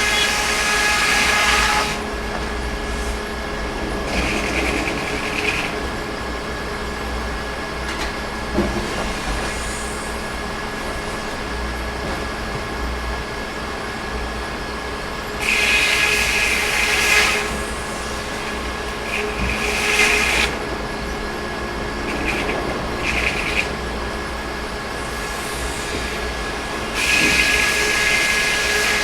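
Sawmill machinery running with a steady hum, with louder surges of a couple of seconds each at the start, about halfway through, and near the end.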